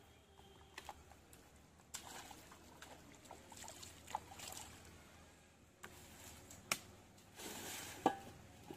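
Hands slapping and smoothing wet mud and splashing shallow muddy water: scattered squelches and splashes, with a couple of sharp wet slaps in the last few seconds.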